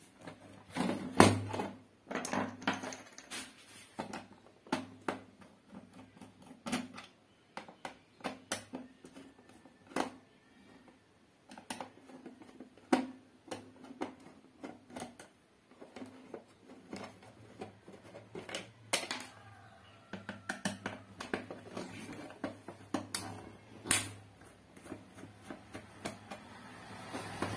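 Irregular clicks and knocks of a plastic extension socket box being handled on a wooden table while a screwdriver takes out the screws of its back cover, loose screws dropping onto the wood. A low steady hum runs underneath.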